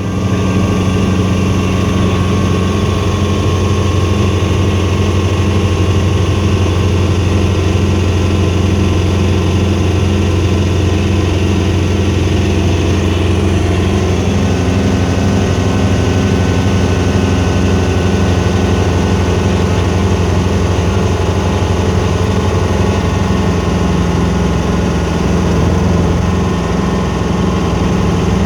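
Helicopter running with a loud, steady drone of engine and rotor, with a fast pulsing in the low end. The pitch of its tones shifts slightly about halfway through.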